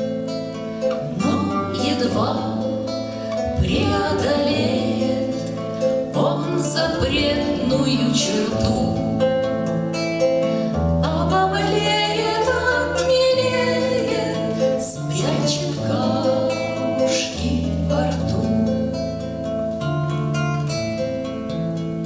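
Acoustic guitar played with picked notes under a singing voice, performing a song.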